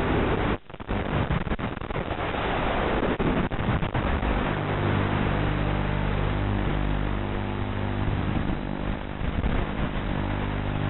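Racing quadcopter's EMAX 2205 2600 kV brushless motors with 5-inch three-blade props buzzing in flight, heard from on board under a heavy hiss. The pitch rises and falls at first, with a brief dropout about half a second in, then holds steady from about four seconds on.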